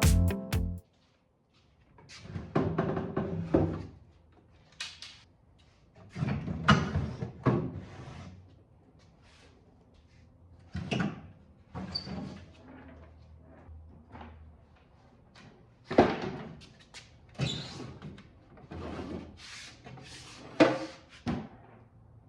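Wooden dresser drawers being handled: irregular knocks, clunks and scraping slides as drawers are pulled out and set down, with a few sharp knocks.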